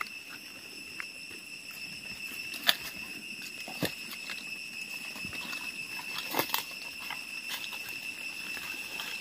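Footsteps crunching through dry leaf litter, with scattered sharp snaps of twigs as someone walks through forest undergrowth. A steady high insect drone runs behind them.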